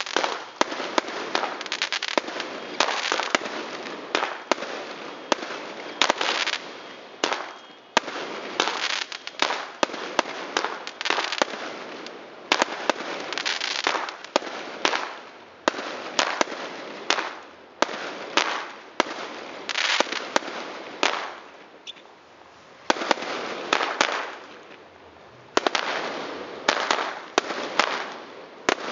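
Fireworks going off: a rapid, irregular series of sharp bangs, each trailing off into crackle, with a couple of short lulls, the longest about three-quarters of the way through.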